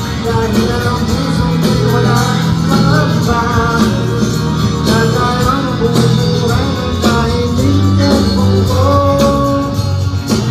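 A band playing a song with a singer, guitar and bass, as at a concert sound check rehearsal.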